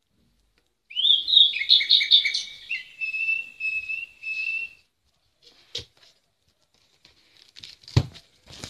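Recorded birdsong played from a children's sound board book's sound chip: a few seconds of quick chirps and whistled phrases. Then two sharp knocks of the board book being handled, the second one, near the end, the loudest.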